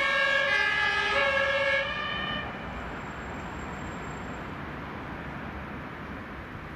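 Two-tone siren of a German fire engine (HLF rescue pumper) pulling away, stepping back and forth between two pitches. It cuts off about two seconds in, leaving a steady, quieter rumble of road and traffic noise.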